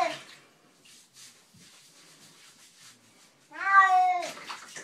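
A domestic cat meowing while being bathed: the end of one loud meow right at the start, then a second long meow of about a second, beginning about three and a half seconds in, with only faint scattered noises between.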